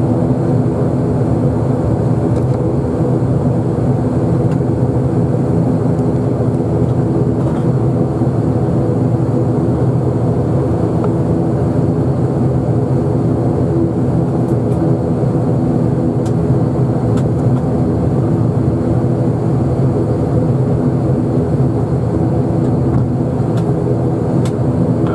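Turboprop airliner's engine and propeller droning steadily, heard inside the cabin beside the engine while the aircraft is on the ground.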